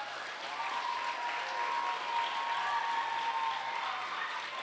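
Audience applauding, building over the first couple of seconds and then easing off slightly, with a long held note running over it.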